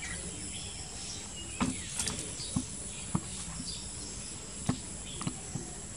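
Outdoor ambience of steady high-pitched insect buzzing with faint bird chirps, broken by scattered light knocks and taps.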